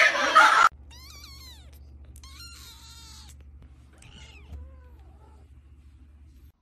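A loud burst of noise cuts off abruptly in the first moment. Then a young kitten meows three times in high, thin calls, the last one fainter, over a faint low hum.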